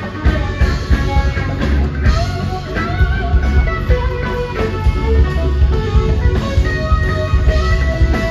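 Live rock band playing, guitar lines over bass and drum kit with a steady beat.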